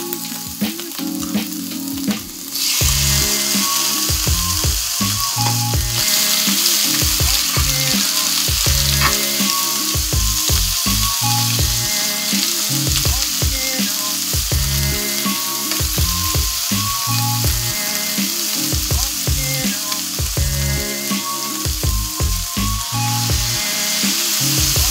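Scallops and shrimp frying in butter in a nonstick pan, a steady sizzle that grows louder about two and a half seconds in and again around six seconds, with tongs stirring. Soft background music plays underneath.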